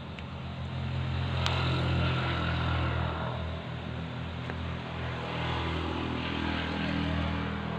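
An engine droning steadily with a low hum that swells about two seconds in, eases, then swells again near the end. A single faint click comes about a second and a half in.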